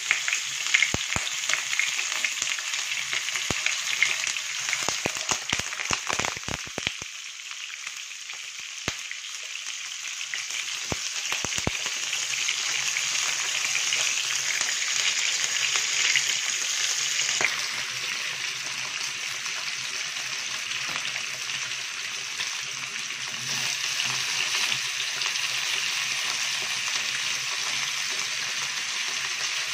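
Raw chicken pieces sizzling skin-side down in hot oil in a frying pan as they are seared to brown. Dense crackling and popping over the first dozen seconds settles into a steady sizzle.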